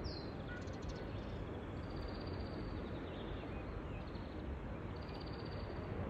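Outdoor ambience: a steady low rumble of wind on the microphone, with birds calling now and then, several short high calls.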